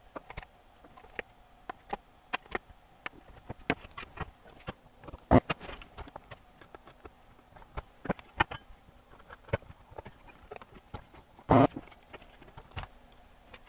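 Desoldering work on a circuit board with a spring-loaded solder sucker: scattered light clicks and taps of tools and components, with two louder snaps about five and eleven and a half seconds in.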